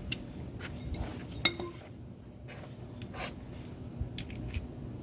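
Light metallic clinks and taps of hand tools or parts being handled, with one sharp ringing clink about a second and a half in.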